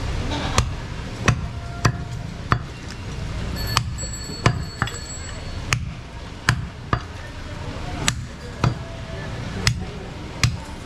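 Butcher's blade knocking on a wooden chopping block: about a dozen sharp chops at uneven intervals, roughly one every half second to a second, over a steady low rumble.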